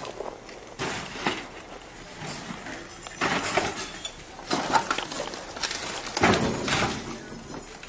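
Footsteps crunching over fire-burned rubble, with debris clinking and rattling underfoot in irregular steps; the loudest crunches come about three seconds in and again near six seconds.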